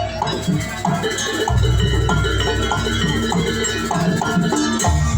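Jaranan ensemble music playing with a steady beat: metal gong-chimes ringing short repeated notes over drums and a pulsing deep bass.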